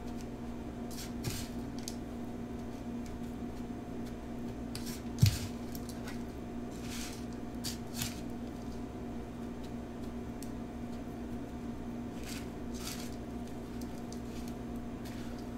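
Fingers pressing and turning a pickle in crushed Flamin' Hot Cheetos crumbs in a glass bowl: soft scattered crunchy rustles and small clicks, with one sharp knock about five seconds in. A steady low hum runs underneath.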